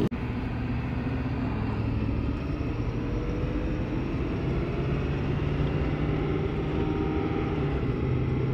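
2022 Ford F-450 pickup driving steadily at road speed: a steady low drone of engine and road noise.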